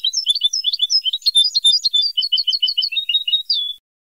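Recorded European goldfinch song from a tutoring tape for caged goldfinches: a fast, continuous run of twittering and trilled notes that cuts off sharply near the end.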